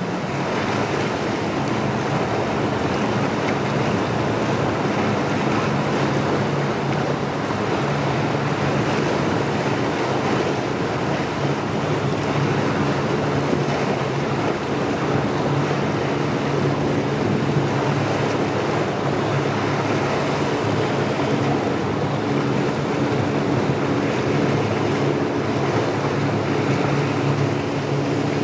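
Sportfishing boat running fast through an inlet: a steady low engine hum under the rushing spray of its hull and wake.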